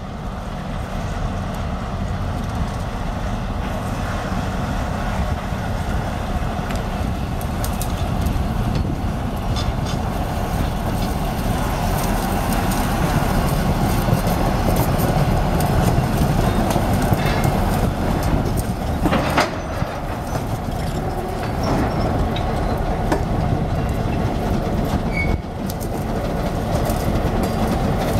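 Short freight train of a caboose, tank car and covered hopper rolling slowly past, shoved by a diesel locomotive: steel wheels rumbling on the rails with occasional clicks over the rail joints and the locomotive's engine running.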